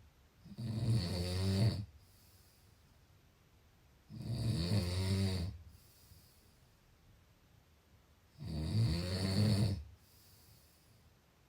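A sleeper snoring: three long snores about four seconds apart, with quiet breathing between them.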